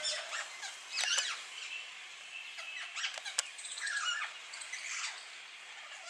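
Small birds chirping and calling, a busy mix of short high chirps and whistles with no single song standing out.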